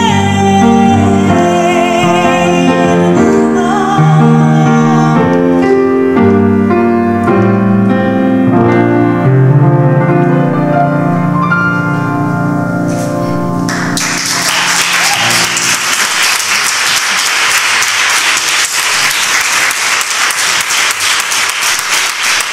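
A woman singing with grand piano at the end of a song: she holds a note with vibrato at the start, the piano plays on alone to a final low chord, and audience applause breaks out about fourteen seconds in and carries on.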